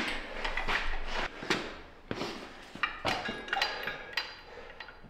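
Irregular metallic knocks and clanks from an engine hoist and the 12-valve Cummins diesel hanging from it on chains as they are handled, several over a few seconds, the loudest about a second and a half and three seconds in.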